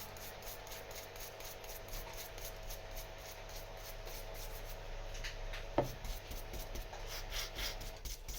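Small brush scrubbing grime off a lock part wet with electronic contact cleaner, in quick even strokes of about five a second, with one sharper click a little before six seconds in.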